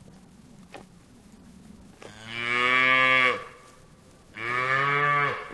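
A cow mooing twice, starting about two seconds in; each moo is a long, full call of a second or more that drops slightly in pitch as it ends.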